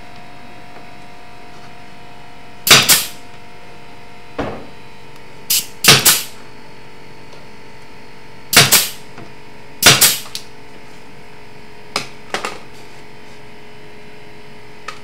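Pneumatic brad nailer firing brads into a wooden cabinet toe kick: about eight sharp cracks at uneven intervals, some in quick pairs.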